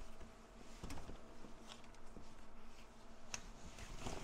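Faint, scattered light clicks and taps from hands working a plastic clip on a waterproof cable connection, over a faint steady hum.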